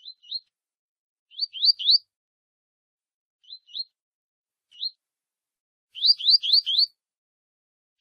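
Double-collared seedeater (coleiro) giving short, rising 'tui' notes in quick groups of one to four, with pauses between groups; the longest run, four notes, comes near the end. These are the warm-up calls of a tui-tui-type male.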